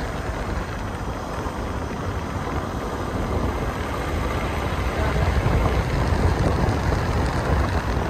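A vehicle on the move: a steady low rumble with a noisy hiss over it.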